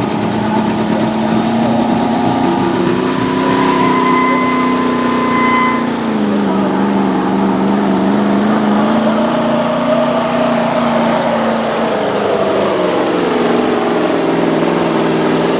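998 cubic inch V8 Mack diesel in a semi truck running hard under load while pulling a weight sled. A high whine climbs about three to five seconds in. The engine note steps down about six seconds in and sags gradually later on.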